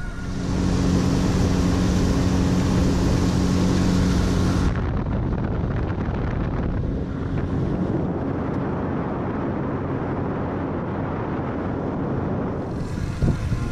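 Tiller outboard motor running under way on a small aluminium fishing boat, a steady drone with wind rushing on the microphone. About five seconds in the sound cuts to a duller, lower running noise, and the brighter rush comes back near the end.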